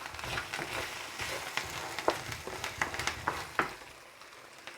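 Rice and tomato frying in oil in a pan: a steady sizzle with sharp clicks and scrapes of stirring, which stop near the end.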